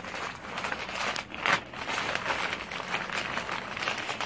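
Stiff gold gele headtie fabric crinkling and rustling as it is wrapped and shaped around a head by hand, with a louder crackle about a second and a half in.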